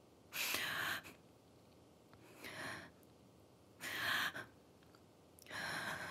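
A person breathing heavily: four audible breaths, roughly one every second and a half.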